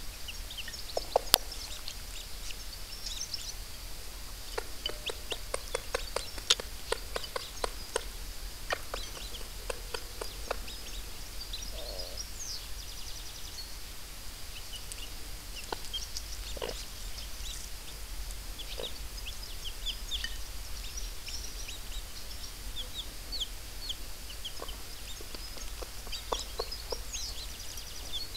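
Chicks peeping with many short, high cheeps, with occasional low clucks from the broody hen. A run of quick taps comes about five to eight seconds in.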